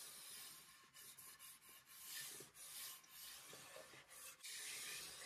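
Faint swishing of a gloved hand rubbing over a glossy finished wood panel, in several uneven wiping strokes.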